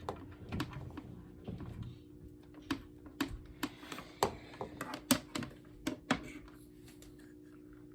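Irregular clicks and light knocks, about a dozen over five seconds, from a smoke alarm and its wire harness being handled, over a faint steady hum.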